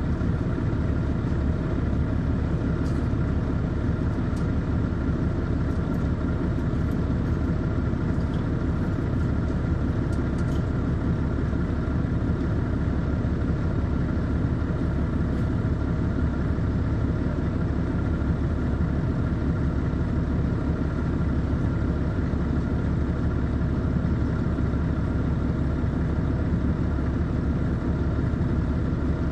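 Caterpillar C13 ACERT diesel engine of an MCI D4500CL coach running steadily, heard from on board the bus, with no revving or shifts.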